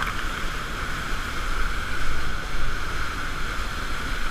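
Whitewater pouring over a waterfall into the pool below: a steady rushing noise.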